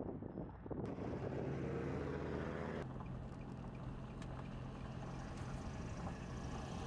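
Tow vehicle's engine running steadily at low speed with tyre and road noise, heard inside the cab; the sound changes abruptly twice, about one and three seconds in.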